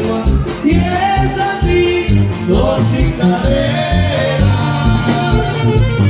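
Norteño band music played for dancing, with a voice singing over a steady bass beat of about three notes a second.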